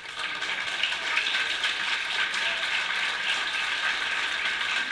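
Crowd applauding, a dense steady patter of many hands clapping that starts suddenly.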